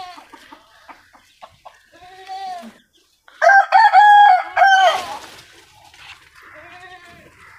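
A rooster crowing once, loud, from about three seconds in for a second and a half. Fainter farm-animal calls come shortly before and after.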